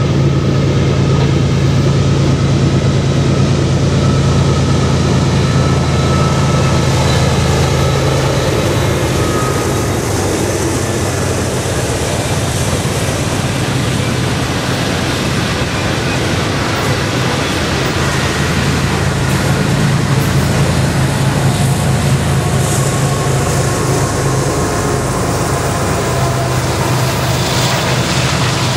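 Freight train passing: the steady low drone of diesel locomotive engines over the rumble and rush of the train rolling by. The engine drone eases about a third of the way through and comes back strongly past the two-thirds mark.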